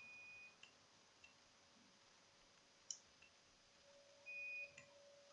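Faint multimeter continuity beeper: a steady high beep that cuts off about half a second in, and a second short beep about four seconds in, each sounding while the probes find a closed circuit. A single sharp click just before the second beep.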